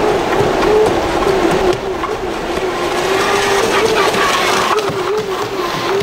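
Electric motor of a large RC jet boat whining steadily, its pitch wavering up and down as the throttle is feathered, over the rush and splash of river water.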